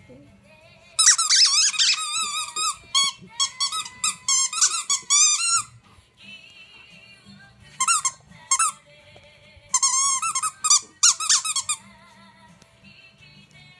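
A dog's squeaky toy squeaking in rapid, wavering runs as a miniature schnauzer chews it: a long run, a short one, then another, with pauses between. Background music plays faintly underneath.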